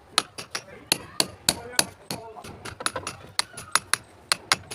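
Rapid, irregular sharp knocks of hard material being struck, about four a second, from work on broken red-brick aggregate.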